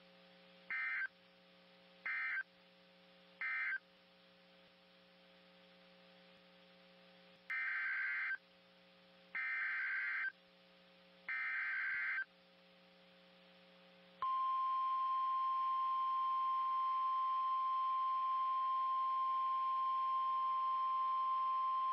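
NOAA Weather Radio / EAS alert signals. Three short bursts of SAME data screech mark the end of one warning. Three longer bursts of the same screech follow as the header of the next warning. Then, from about 14 seconds in, the steady single-pitch 1050 Hz weather radio warning tone sounds, all over a faint radio hum.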